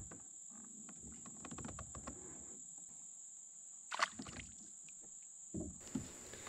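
Quiet handling sounds of fishing gear in a plastic kayak: soft knocks and rustles, with a sharper click about four seconds in. Under them runs a steady high buzz of insects.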